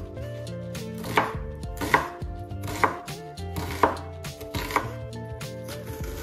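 Knife chopping an onion on a bamboo cutting board: sharp blade strikes against the wood, about one a second, over steady background music.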